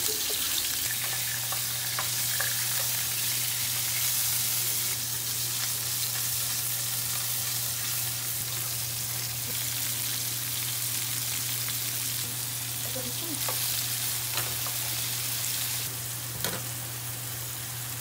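Beef cubes and then cut vegetables sizzling steadily in hot oil in a frying pan, stirred now and then with a wooden spatula that gives a few light knocks. A steady low hum runs underneath.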